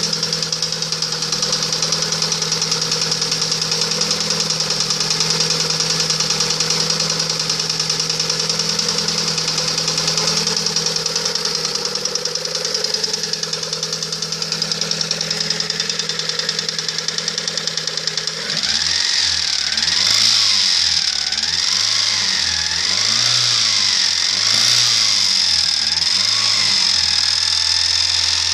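Lada Priora engine running with the knock that the owner is complaining about. About two-thirds of the way through the sound changes abruptly; the engine speed then rises and falls several times before settling.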